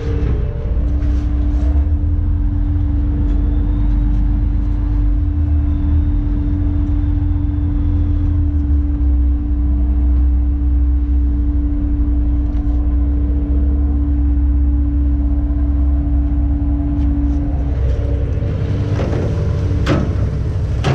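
Fishing boat's diesel engine running with a steady low rumble, with a steady hum over it that stops a few seconds before the end. A few knocks near the end.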